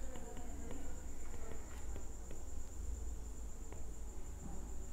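Faint taps and scratches of a stylus on a tablet's glass screen while handwriting, over a steady high-pitched whine and a low hum.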